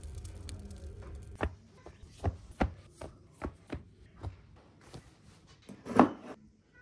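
Knife blade striking a wooden cutting board while chopping raw meat: a series of sharp separate knocks, the loudest about six seconds in. A low steady rumble stops after about a second.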